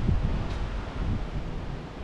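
Wind buffeting the microphone in irregular low rumbling gusts over a steady outdoor rushing noise, easing off near the end.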